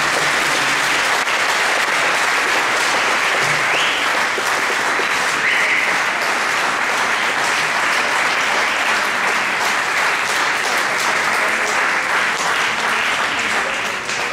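Audience applauding steadily, starting to die away at the very end.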